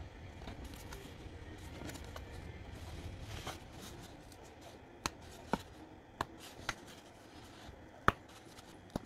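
Laser-cut MDF disc bases being pushed out of their sheet by hand: a soft rustle of handling, then from about five seconds in about half a dozen sharp snaps as the small holding tabs break, the loudest a little after eight seconds.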